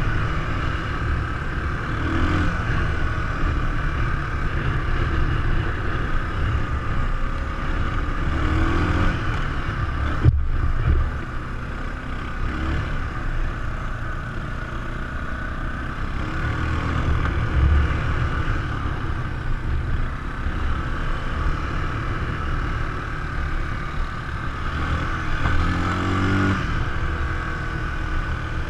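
ATV engine running steadily while riding a dirt trail, with a few brief rises in pitch as the throttle opens. One sharp knock about ten seconds in.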